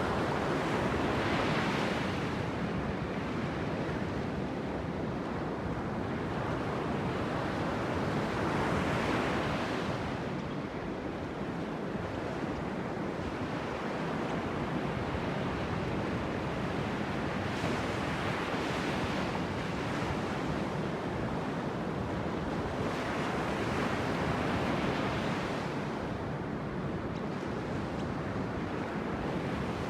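Sea waves breaking and washing on a beach, surging and easing several times, with wind buffeting the microphone.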